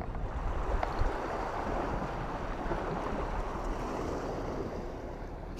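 Sea surf washing, with wind on the microphone: a steady, even rush.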